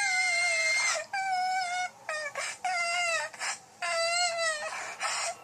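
High-pitched crying of cartoon cat characters: about five wavering whimpering wails, each under a second long, with short gaps between them. A steady high tone under the first cry cuts off about a second in.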